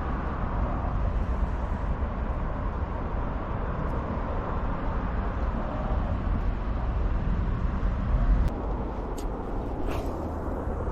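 Steady outdoor rumble and hiss with no speech, swelling briefly about eight seconds in.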